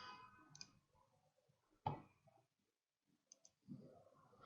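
A few scattered computer mouse clicks, the loudest a little under two seconds in, with near silence between them.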